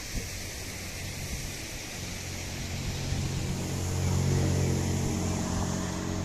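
A motor vehicle passing close by: a low engine hum swells from about two seconds in, peaks a little after four seconds, then eases off, over a steady background hiss.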